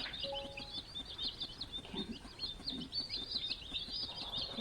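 A brood of three-day-old baby chicks, buff Orpingtons and Sussex, peeping nonstop: a dense chorus of many short, high cheeps overlapping one another.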